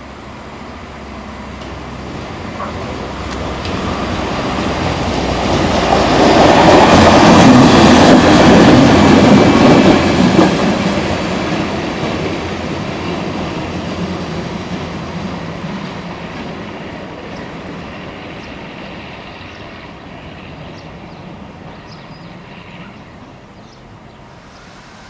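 Two-car diesel railbus passing by: the engine and wheels on the track grow louder, are loudest about seven to ten seconds in as it goes past, then fade slowly as it moves away.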